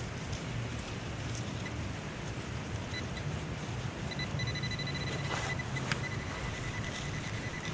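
Metal detector pinpointer sounding a high, pulsing beep that becomes almost continuous from about three seconds in, over a steady hiss of rain.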